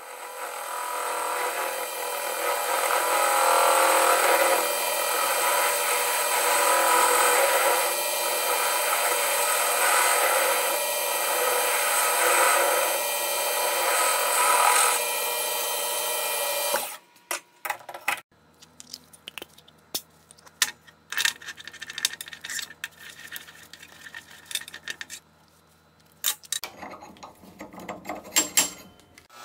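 Metal lathe running and cutting, a carbide insert turning a round part with a steady machine noise. About 17 seconds in it stops abruptly, followed by scattered sharp metal clicks and knocks as steel punch tooling is handled, over a faint low hum.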